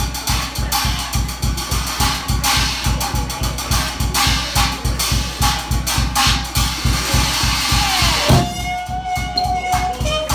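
Swing jazz drum-kit break: the drummer plays snare and cymbals over a steady bass-drum beat with rhythm guitar behind. About eight seconds in the horns come back in with held notes, the cornet played with a plunger mute.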